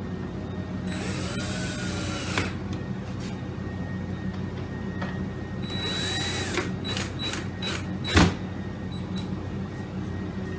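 Cordless drill driving the clamping screws that press a curved caul down on a glued guitar-top joint. It makes two short runs, the first about a second in and a shorter one around six seconds, with the motor speeding up and slowing down. A few clicks and one knock follow near eight seconds, over a steady low hum.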